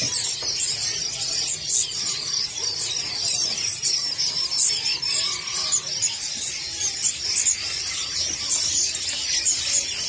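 Many small caged birds chirping at once: a dense, high-pitched chatter of short calls with no let-up.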